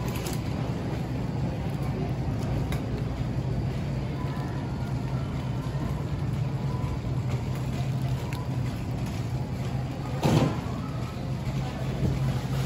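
Shopping cart rolling and rattling along a store's concrete floor as it is pushed, over a steady low hum. About ten seconds in there is one brief, louder sound.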